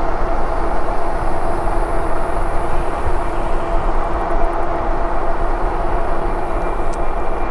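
Riding a Lectric e-bike: steady wind rush over the camera microphone and tyre rumble, with a faint steady hum from the bike.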